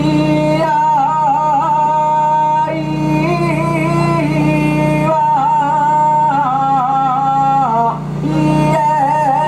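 A man singing an ondo-age festival chant: long held notes in a high voice, with wavering ornaments on each phrase and short breaks for breath. A steady low hum runs underneath.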